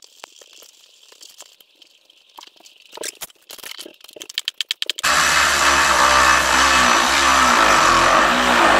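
Hand tools clicking and knocking against the snowmobile's clutch, with a fast run of ratchet clicks, then a power tool runs loudly and steadily from about five seconds in. It is driving a Teflon-taped bolt into the penetrant-filled bolt hole of the primary clutch to press the clutch off the crankshaft hydraulically.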